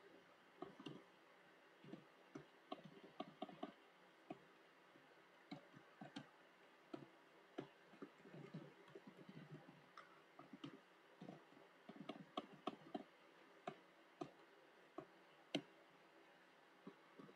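Faint computer keyboard typing: quick runs of key clicks broken by short pauses.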